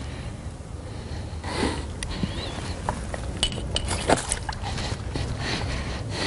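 Water splashing and sloshing as a bream is lowered by hand over the side of a boat into the river, with a few sharp clicks and knocks of handling about three and a half to four seconds in.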